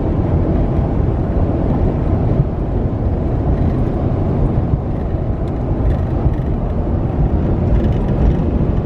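Steady, loud low rumble of road and wind noise inside a vehicle's cab driving at highway speed.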